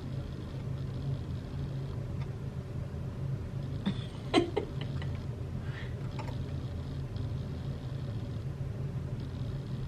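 Steady low hum with a few faint steady tones, and a brief pitched sound that bends up and down about four and a half seconds in.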